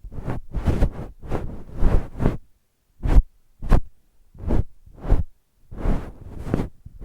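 Bonten ear pick's fluffy tip brushed against the microphone in a run of short brushing strokes, about two a second, with two shorter, sharper strokes about three seconds in.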